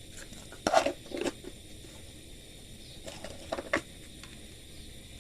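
Kitchen utensils being handled: a few short knocks and scrapes, a cluster about a second in and another around three and a half seconds in.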